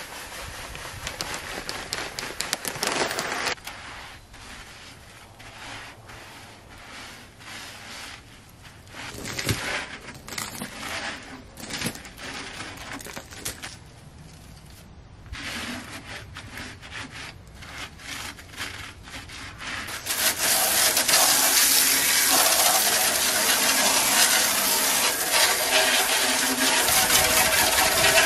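Dry baking soda poured onto a metal tractor battery tray crusted with acid corrosion, then rubbed and scraped in by hand with short strokes, to neutralise the leaked battery acid. From about twenty seconds in, a jet of water hisses steadily onto the tray, louder than anything before it.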